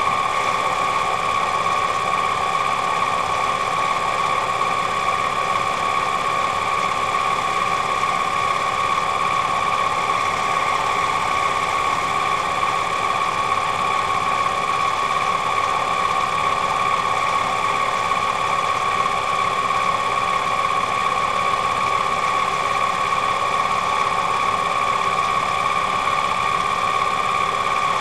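Mini lathe running at a steady speed with a steady whine, turning a cue tip while a pivoting tip-shaper cutter is swung across it to shape the tip.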